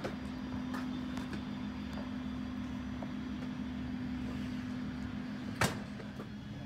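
Steady low hum of aircraft jet engines, with scattered faint clicks and one sharper knock about five and a half seconds in.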